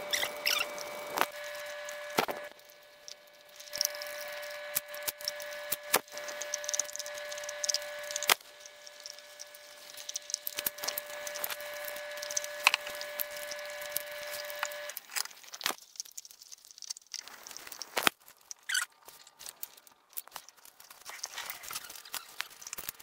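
Alaskan Malamute chewing and licking raw meat: wet, squishy smacking and tearing with irregular sharp clicks of teeth. A faint steady whine runs under it and stops about 15 seconds in.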